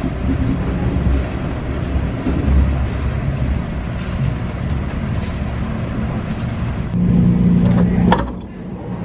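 Steady low rumble and hiss of a passenger rail car running, heard from inside the carriage. Near the end a steady low hum sets in for about a second, then a sharp click and a brief drop in level.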